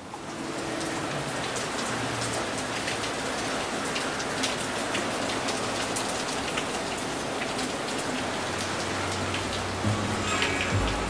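Steady patter of rain mixed with wet snow falling, a constant hiss dotted with many small drop ticks. Music comes in near the end.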